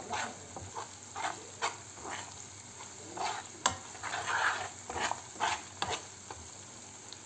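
A metal spoon stirring and scraping through garlic frying in oil in a frying pan, over a light sizzle. One sharp clink of the spoon against the pan comes about halfway through, and the stirring stops about six seconds in.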